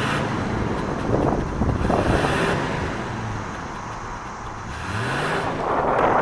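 1981 Buick Riviera's 3.8 L V6 running, heard from behind the car, with the engine pitch rising as it is revved about five seconds in.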